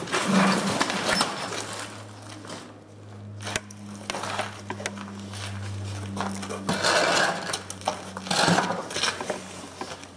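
Short bursts and single shots from an electric airsoft rifle, mixed with the clatter of gear, over a low steady hum.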